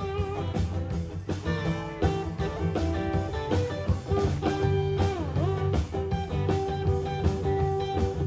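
Live band playing: electric and acoustic guitars over a drum kit keeping a steady beat.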